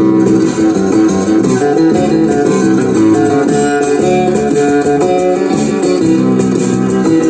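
Music with guitar playing back from a cassette through a National RX-C46F radio-cassette recorder while its playback head azimuth is adjusted by ear with a screwdriver, bringing up the treble.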